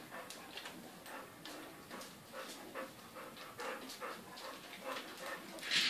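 Three-and-a-half-week-old Goldador puppies making small grunts and whimpers as they play-wrestle, with irregular scratching and rustling of paws on a plastic floor sheet. A louder rustle comes near the end.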